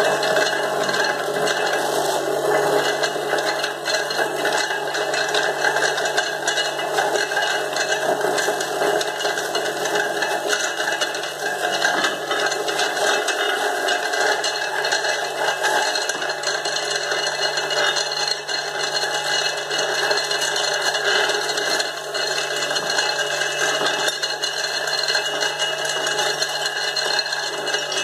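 Stainless-steel electric fruit juicer running steadily under load, its motor humming and its spinning grater shredding fruit pressed down the feed chute, with a continuous fine mechanical rattle.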